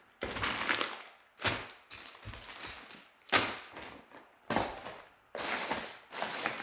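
Plastic packaging bags rustling and crinkling in about five separate bursts as bagged items are handled.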